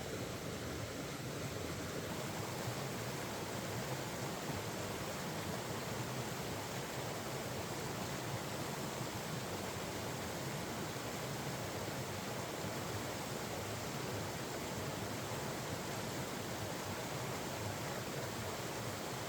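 Mountain stream flowing steadily, a constant rushing of water.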